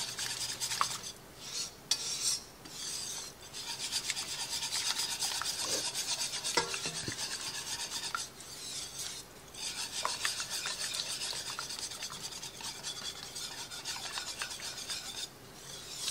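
Wire whisk beating thick cream-cheese Alfredo sauce in an enameled pot: a fast, steady scraping and rasping of the wires against the pot's sides and bottom, with a few brief pauses. The whisking is breaking up lumps of cream cheese in the sauce.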